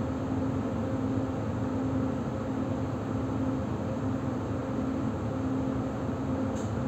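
Interior running noise of an EG2Tv Ivolga electric train pulling into a station: a steady rumble with a low electric hum that comes and goes in a regular rhythm, a little more than once a second. A short high hiss near the end.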